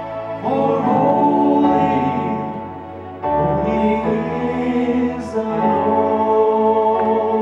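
A male vocal group of five singing in harmony through microphones, holding long chords; the sound eases off briefly about three seconds in before the next phrase begins.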